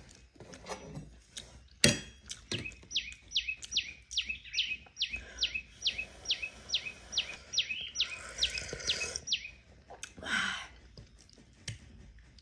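A bird chirping a rapid, even series of about sixteen descending notes, two or three a second, over several seconds.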